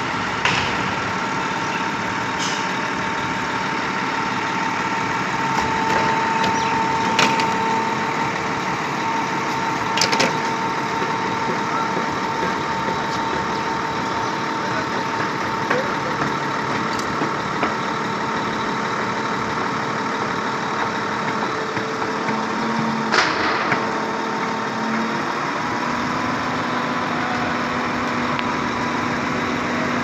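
Truck-mounted concrete pump running steadily: diesel engine noise with a constant whine, broken by a few sharp knocks at irregular intervals.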